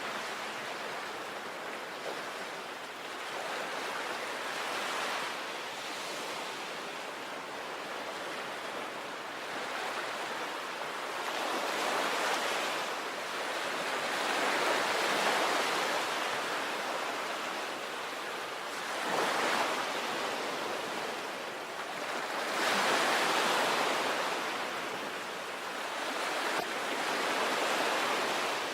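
Sea waves breaking and washing on a shore, a steady hiss of surf that swells with each wave every few seconds, with some wind on the microphone.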